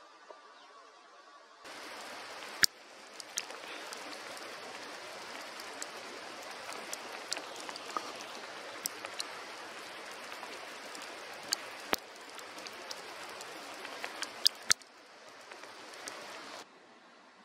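Steady hiss of wet snow and rain falling, with scattered sharp ticks of drops striking close by. It starts and stops abruptly; the loudest tick comes about a second after it starts, and a few more come near the end.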